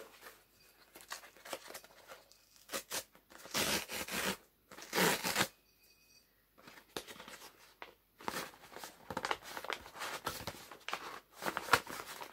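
Brown paper parcel wrapping being torn open by hand: irregular bursts of ripping and crinkling paper, the loudest two a few seconds in, then a busy stretch of rustling and tearing near the end.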